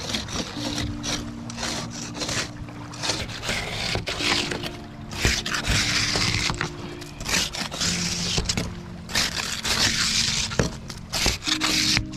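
Hand scraper scraping barnacles and mussels off the bottom of a boat's hull in repeated strokes, roughly one a second.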